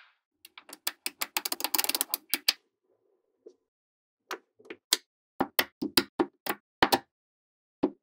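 Small magnetic balls clicking together as they are snapped into place: a quick clattering run of clicks in the first two seconds, then single sharp clicks at uneven spacing as hexagonal layers are stacked onto each other.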